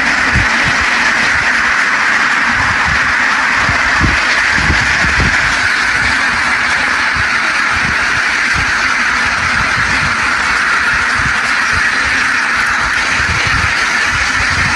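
A large flock of ducks quacking all together in a dense, steady din, with irregular low rumbles underneath.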